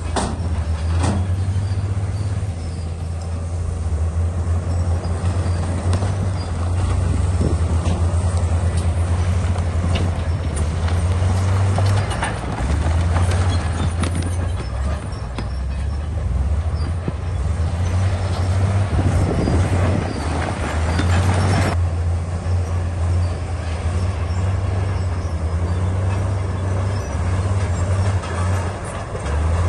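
Komatsu D68E bulldozer's diesel engine running steadily under load as it pushes rock, with a low drone and the clatter of tracks and steel on stone. About two-thirds through, a harsher scraping rush builds and then cuts off suddenly.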